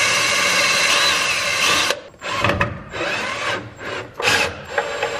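Cordless screw gun driving #8 by 1-inch self-tapping screws: it runs steadily, stops about two seconds in, gives several short bursts, then runs steadily again near the end.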